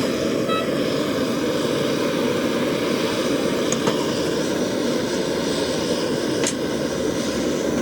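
A steady, even rushing noise of something running continuously, with a couple of faint clicks about four seconds in and again about six and a half seconds in.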